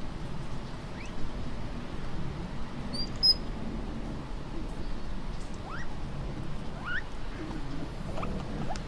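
Patagonian mara calling: short squeaks that sweep upward in pitch, one about a second in and several more in the second half, over a steady low rumble. A brief high chirp about three seconds in is the loudest sound.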